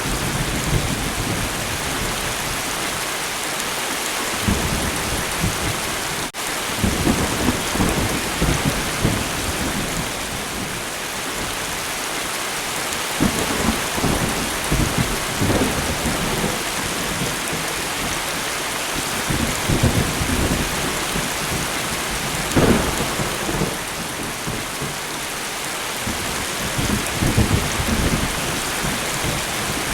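Steady rain falling, with thunder rumbling low again and again through it; the strongest rumble comes a little past two-thirds of the way in.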